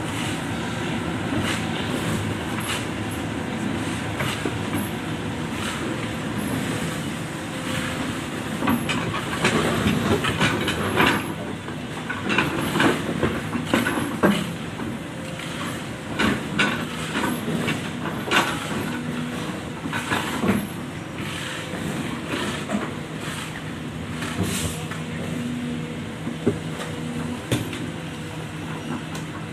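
Jonyang JY623E excavator at work digging soil, its diesel engine running steadily. Irregular knocks and clanks come as it digs, thickest from about 8 to 21 seconds in and sparser after.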